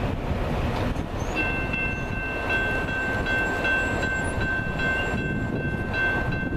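Freight train rumbling away from a grade crossing, with a steady high ringing tone joining in about a second in: the crossing signal's warning bell still sounding as the gates lift.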